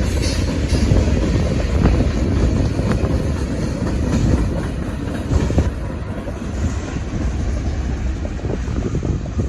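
Long CSX freight train rolling past: a steady rumble of wheels on the rails, with wind buffeting the microphone.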